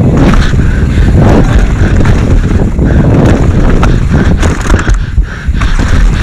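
Downhill mountain bike running fast over a rough dirt trail: the tyres rumble on the dirt and the bike clatters and knocks over roots and bumps many times, with wind buffeting the action camera's microphone.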